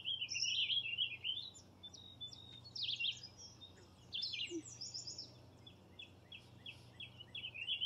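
Wild songbirds singing: a continuous run of high chirps, quick rising and falling notes and short warbled phrases, over a faint steady low hum.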